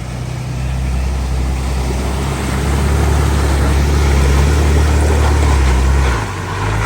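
4WD vehicle engine running under load on an off-road track, a steady low drone that grows louder, then eases off about six seconds in.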